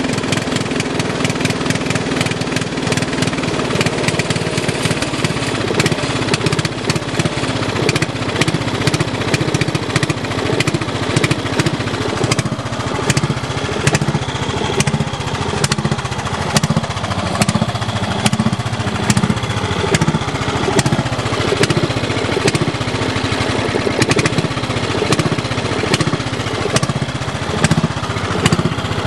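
1980 Montgomery Ward lawn tractor's 10 hp Briggs & Stratton single-cylinder engine running steadily, with a rapid, even beat of firing pulses.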